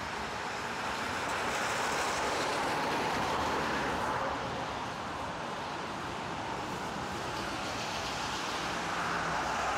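Road traffic going by on a wet, slushy street: a steady hiss of tyres and engines that swells as a vehicle passes a couple of seconds in and again near the end.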